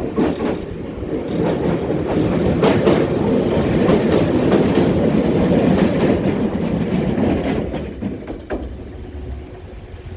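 Two-car Bessho Line 6000-series electric train passing close by, its wheels clacking over the rail joints. It builds up over the first couple of seconds, runs loudest through the middle, and fades away after about eight seconds.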